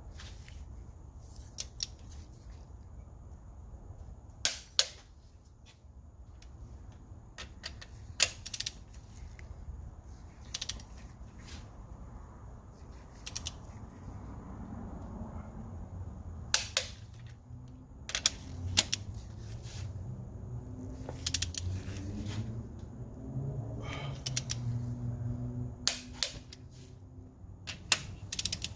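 Sharp single clicks from a click-type torque wrench, coming every second or two and sometimes in quick pairs, as the Honda Civic EG's cylinder head studs are torqued to spec.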